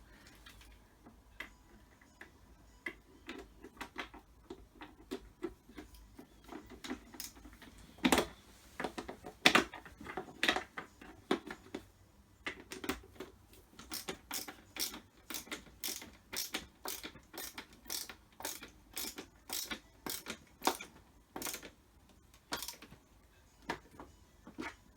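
Screws being driven into the plastic housing of a pressure washer by hand with a screwdriver: a run of sharp clicks, with a few louder knocks about eight to ten seconds in, then a steady series of about two to three clicks a second in the second half.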